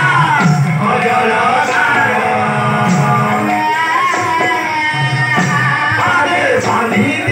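Odia devotional kirtan: singing through a PA, with percussion strikes at irregular points.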